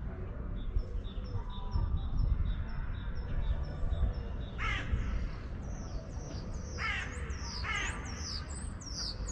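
Birds calling: three harsh caws near the middle, over repeated short high chirps of a smaller songbird that grow busier near the end.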